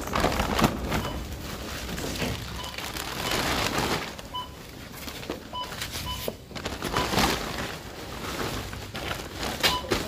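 Supermarket checkout beeps: about eight short electronic beeps, all at the same pitch, sounding at irregular intervals from the tills and self-checkouts. They play over the clatter of items being handled and general store noise.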